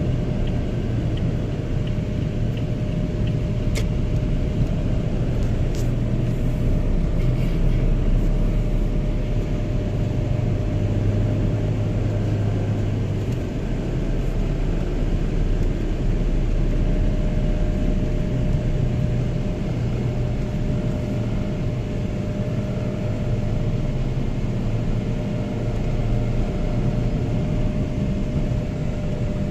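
Steady engine and road noise of a car driving through city traffic, heard from inside the cabin.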